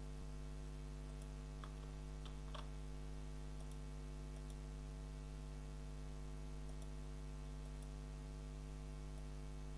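Steady electrical mains hum with several overtones, and a few faint clicks about two seconds in.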